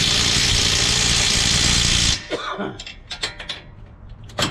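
Impact wrench running a 22 mm nut onto a new front-strut bolt in one continuous burst that cuts off about two seconds in. A few light clicks follow, and a brief burst comes near the end.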